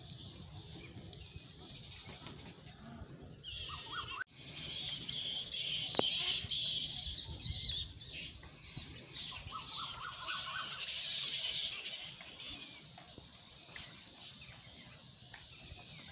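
Many small birds chirping and chattering together in a dense, continuous chorus, which cuts out for an instant about four seconds in and then grows louder.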